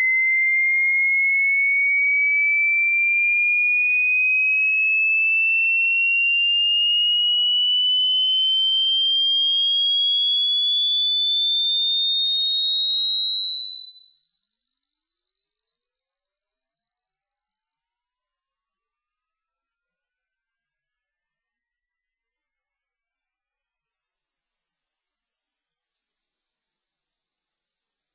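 Electronically generated pure sine tone for a hearing test, a single high whistle-like pitch rising slowly and steadily, growing very shrill by the end. It sweeps upward to probe the highest frequencies a listener can hear.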